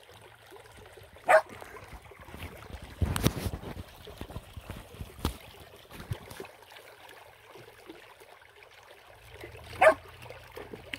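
A dog barking twice, single sharp barks about a second in and near the end, over the faint trickle of a shallow river running among stones. A brief rustling burst comes about three seconds in.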